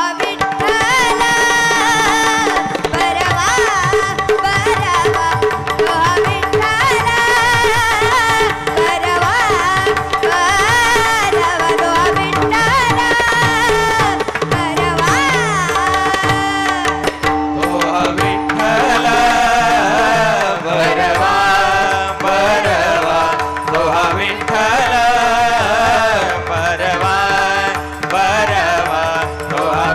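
Marathi bhajan music: tabla playing under a steady held drone, with a sliding, ornamented melody line above it.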